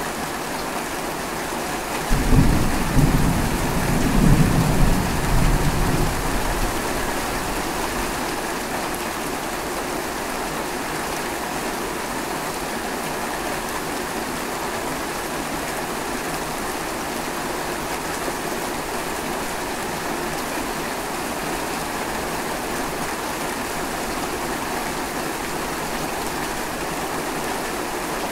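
Steady, loud rain falling, with one low roll of thunder about two seconds in that rumbles for around five seconds and fades away under the rain.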